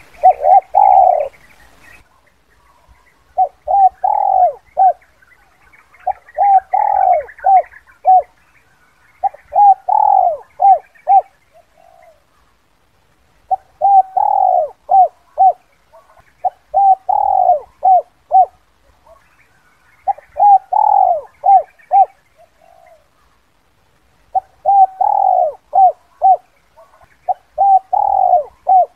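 Spotted dove cooing its 'kuk 2' song, a lure call for trapping wild doves. It repeats a phrase of quick short coos around one longer drawn-out note about every three to four seconds, nine times over.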